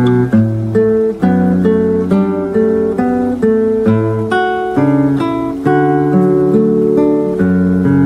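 Background music: acoustic guitar playing chords in a steady, even rhythm.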